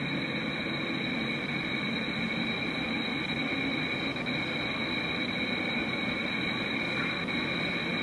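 Doorbell camera audio: a steady hiss with a constant high-pitched whine, unchanging throughout.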